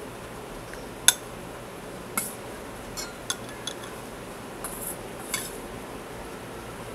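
A spoon and drinking glasses clinking and knocking on a tabletop: a handful of separate sharp clicks with some light scraping, the sharpest about a second in.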